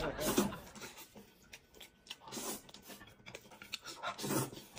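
A man eating noodles, slurping and chewing, in three short bursts about two seconds apart.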